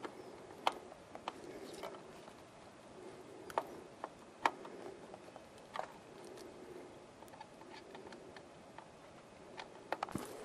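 Faint, irregular light clicks and small snaps, a dozen or so scattered over a soft steady background, with a quick cluster of them near the end.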